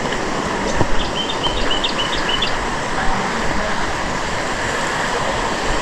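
Steady rush of flowing water, a stream or waterfall. About a second in, a bird gives a quick series of short, high chirps.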